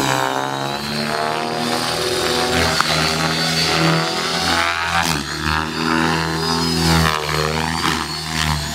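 Align T-Rex 600E electric RC helicopter in flight: the rotor and motor whine rises and falls in pitch over and over as it manoeuvres.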